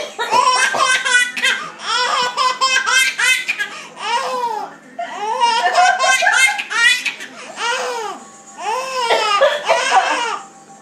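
Baby laughing hard in about four bouts of rapid, high-pitched laughs, with short pauses for breath between them.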